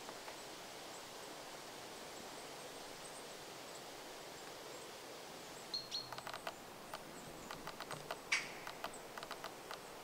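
Great spotted woodpecker in a pine: from about six seconds in, a run of irregular sharp taps and ticks, with one louder sharp note a little after eight seconds, over a steady background hiss of outdoor air.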